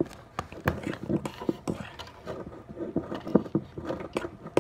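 Slime being stirred in a mixing bowl as borax activator works in: a quick, irregular run of clicks and taps from the stirring utensil against the bowl.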